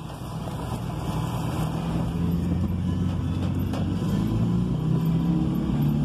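Minivan driving, heard from inside the cab: engine and road noise growing steadily louder, with the engine note climbing slightly as it picks up speed.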